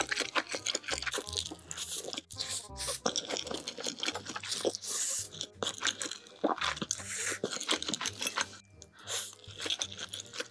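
Close-miked mouth sounds of a person eating spicy instant noodles: wet slurps as mouthfuls of noodles are sucked in, with chewing and smacking between them and longer slurps about five and seven seconds in. Faint background music sits underneath.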